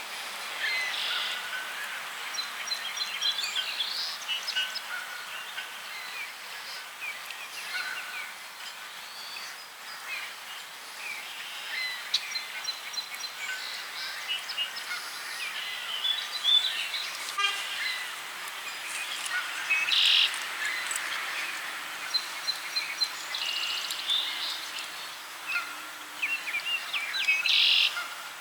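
Several small birds chirping and calling over a steady outdoor background hiss, with louder chirping bursts about two-thirds of the way in and near the end.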